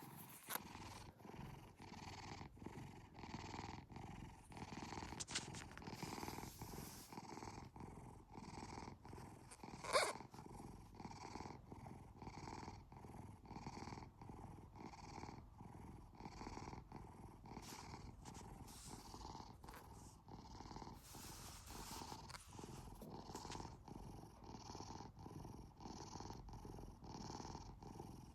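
A domestic cat purring steadily, in an even rhythm of breaths in and out, with one brief sharper sound about ten seconds in.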